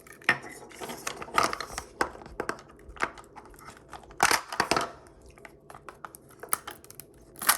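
Thin plastic packaging of a Mini Brands toy being torn open and crinkled by hand, in irregular bursts of rustling and crackling.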